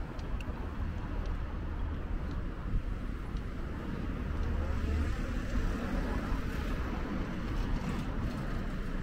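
City street traffic noise: vehicles running on the road alongside, a steady low rumble.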